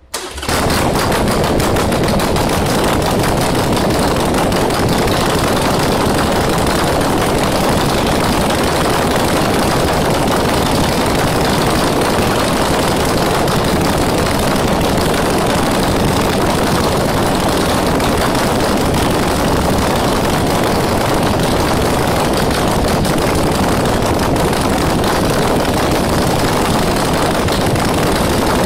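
Harley-Davidson Sportster 883 Iron's air-cooled V-twin running loud through custom-made 2.5-inch straight-through exhaust tips, a steady, rapid pulsing exhaust note. It comes in suddenly just after the start and holds at a constant level.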